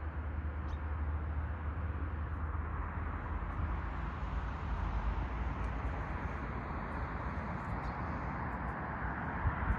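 Steady outdoor noise: a low rumble under a hiss, with a few low thumps near the end.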